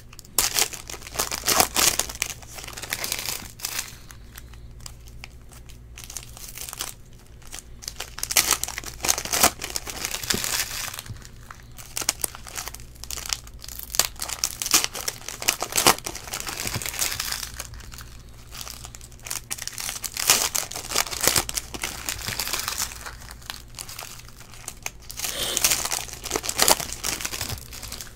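Foil wrappers of trading-card packs crinkling in irregular bursts as they are handled and opened by hand, over a steady low hum.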